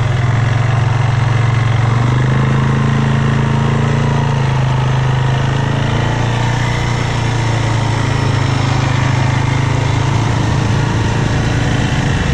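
ATV engine running steadily at low speed, heard from on board the machine.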